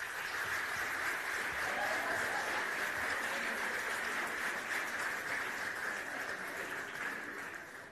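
Audience applauding: a dense, steady patter of many hands clapping that starts suddenly and thins out near the end.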